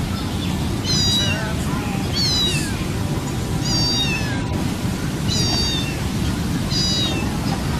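A cat meowing repeatedly: five short, high-pitched meows, each falling in pitch, about one every second and a half, over a steady low rumble.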